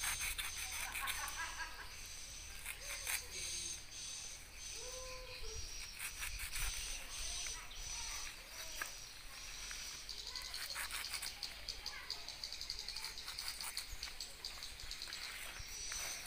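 Outdoor ambience of a steady, high-pitched insect drone with a few short bird chirps about four to five seconds in. Scattered rustles and light clicks come from a coconut-fibre wrap on a rambutan branch being trimmed with a knife.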